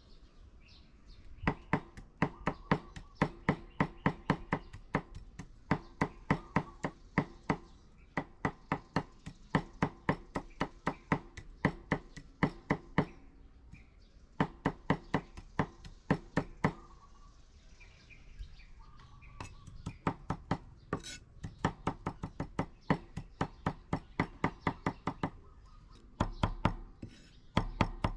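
A knife chopping on a cutting board: quick, even strokes at about four a second in runs of several seconds, with short pauses between the runs.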